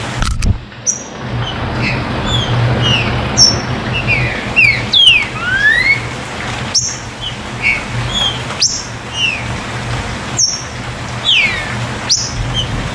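Green-winged saltator (trinca-ferro) giving many short whistled chirps, mostly quick downward-sliding notes, with a few longer rising and falling slides about five seconds in. Sharp clicks come every couple of seconds, over a steady background hiss.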